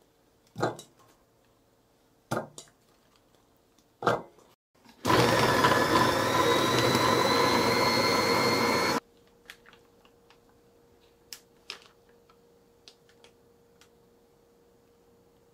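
A food processor running for about four seconds, pureeing onion pieces into a paste, starting and stopping abruptly and carrying a thin high whine. Before it come three knocks against the glass bowl; afterwards there are faint scattered clicks and handling sounds.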